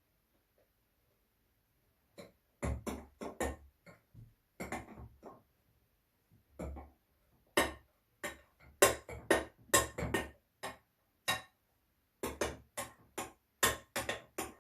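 A large spoon knocking and clacking against a bowl as slime mixture is stirred: irregular sharp knocks, a few a second, coming thicker in the second half.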